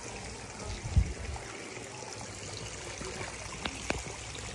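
Water trickling steadily into a koi pond. A low thump comes about a second in, and two sharp clicks come near the end.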